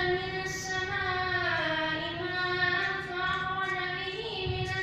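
A boy reciting the Quran aloud in a melodic chant, drawing out long held notes that slide slowly in pitch.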